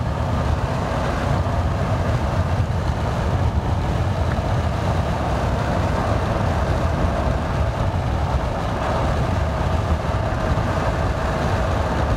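Steady low rumble of a moving vehicle heard from inside: road, tyre and engine noise with a constant hum.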